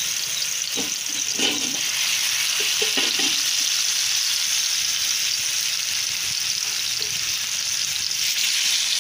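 Marinated fish pieces shallow-frying in hot oil on a cast iron tawa: a steady sizzle, with a few brief soft sounds in the first few seconds as more pieces go in.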